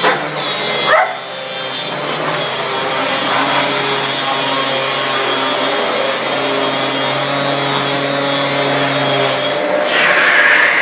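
Hoover vacuum cleaner running steadily, with a dog giving a short rising yelp about a second in. Near the end the vacuum's sound changes to a higher rushing hiss.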